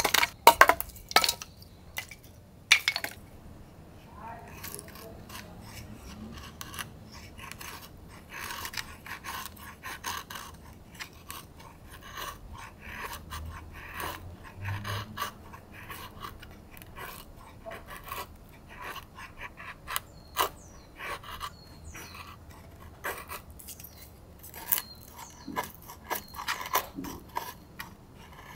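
A few sharp knocks as a knife is batoned down through a small stick of wood, then many short scraping strokes of the knife blade shaving thin curls off a wooden stick to make a feather stick.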